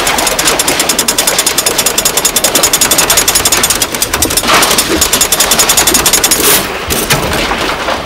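A loud, rapid mechanical rattle, an even run of sharp strokes that stops about six and a half seconds in.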